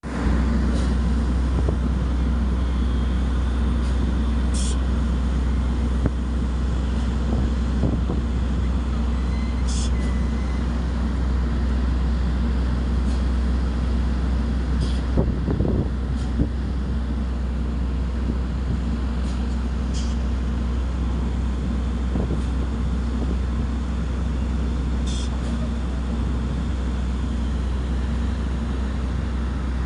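Heavy diesel machinery running: a deep, steady engine drone throughout, with short high hisses every few seconds and a few knocks.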